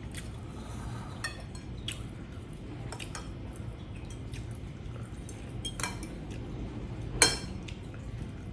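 Spoon and utensils clinking against a bowl while eating soup, a few scattered light clinks with one louder clink a little after seven seconds, over a low steady hum.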